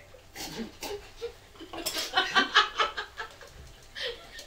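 Laughter: a quick run of giggles about two seconds in, the loudest part. A couple of short sharp clicks come before it.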